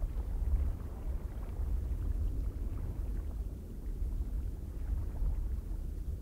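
Strong wind blowing in uneven gusts with a deep low rumble.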